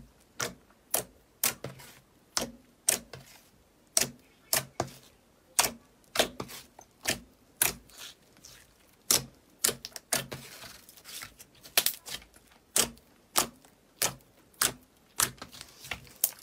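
Glossy slime being squeezed and folded by hand, giving a run of sharp wet clicks and pops, about two a second at an uneven pace.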